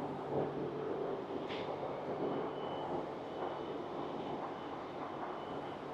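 Diesel train standing with its engine idling as a steady low hum, while a high beep sounds on and off in short stretches from about halfway through.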